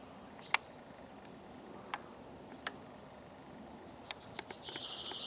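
A small songbird singing fast, high chirps and a rapid trill that start about four seconds in, over faint outdoor background with a few sharp clicks earlier on.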